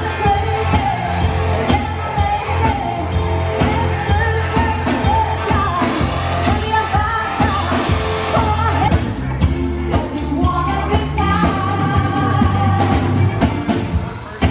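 Live band playing a song: a woman singing over drums, bass and guitar, amplified through PA speakers.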